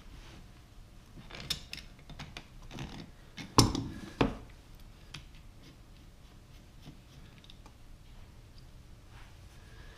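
Pliers and the brass hose fitting of a dishwasher's water inlet valve clicking and knocking as the valve is worked free by hand, with two louder sharp knocks about three and a half and four seconds in, then only faint handling.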